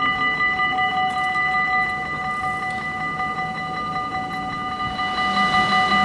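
Dutch level-crossing warning bell ringing steadily, the signal that barriers are down and a train is coming. In the last second or so the noise of the approaching train rises under it.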